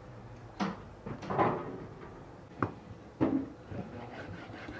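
Four separate knocks and clatters of cookware being handled, the loudest about a second and a half in, with a short sharp click just past the middle.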